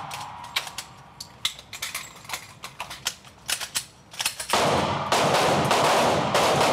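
Handgun fire on an indoor range during an emergency reload drill. First come a run of sharp clicks and rattles as the magazine is changed, then loud, echoing shots from about four and a half seconds in.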